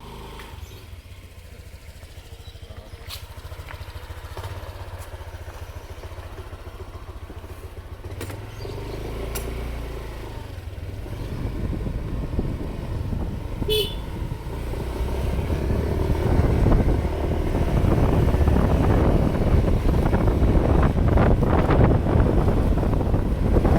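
A vehicle engine running on the move, with wind rumbling on the microphone; the rumble grows steadily louder over the second half.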